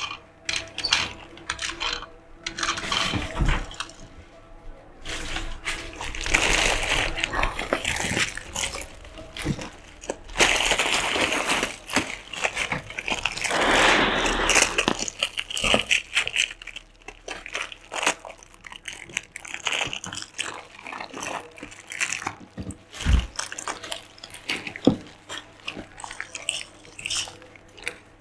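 Clear plastic toy bags crinkling and rustling as hands rummage through a pile of bagged toys, with scattered clicks and taps of hard plastic and one sharper knock near the end.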